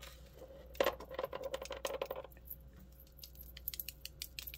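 Acrylic beads and gold-tone chain of a necklace clicking and jingling lightly as they are handled, in a scatter of small sharp clicks.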